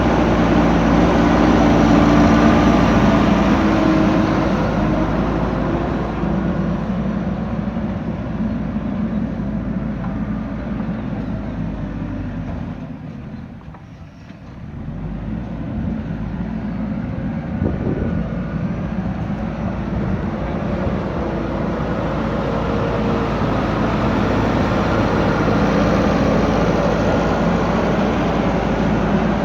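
Heavy diesel engine of a JCB backhoe loader running at working revs. It fades to a brief low point about halfway through, then comes back up to full level.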